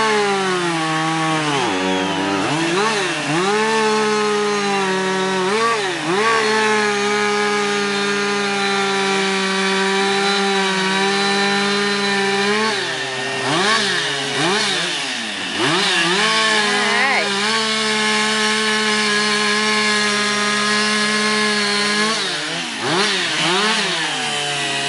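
Two-stroke chainsaw trimming a log: the engine revs up and down several times, with two long stretches held at a steady high speed.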